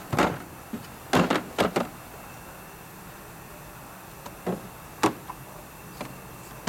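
Hard plastic carrying case of a Snap-on MT37A oil pressure gauge set being handled and opened: a series of sharp plastic clicks and knocks as its latches are snapped open and the lid is lifted. There is a quick cluster of clicks about a second in, and single knocks about four and a half, five and six seconds in.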